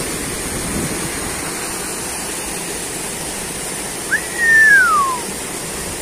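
Steady rush of a small waterfall pouring into a rock pool. About four seconds in there is a single falling whistle lasting about a second, louder than the water.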